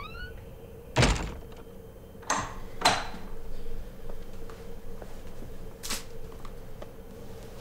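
A door swinging shut with a loud thunk about a second in, followed by a few lighter knocks and taps, over a faint steady hum.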